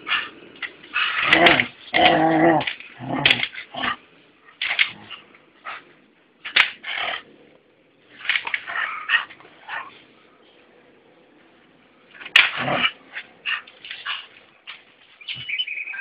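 A dog barking, yipping and whining in short irregular bursts, loudest in the first few seconds, with a lull of a couple of seconds before a sharp loud bark about twelve seconds in.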